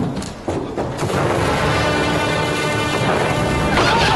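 Fireworks going off in a dense, continuous crackle with booms, starting about a second in, over dramatic background music. Shrill whistles sliding in pitch come in near the end.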